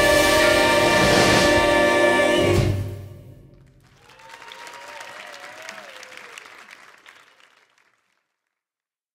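An a cappella vocal ensemble holds its final chord, which cuts off about two and a half seconds in and rings briefly in the hall. Audience applause follows and fades out near the end.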